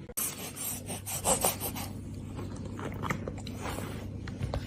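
Chewing with irregular crunching and rasping clicks, as of someone eating crunchy food.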